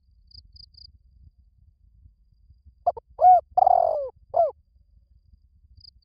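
Spotted dove cooing: one call of four notes over about a second and a half, the third note the longest and falling in pitch. Faint high ticks sound three times near the start.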